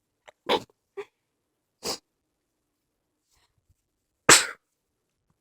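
A person's stifled sneezes: several short, held-back bursts, the loudest about four seconds in.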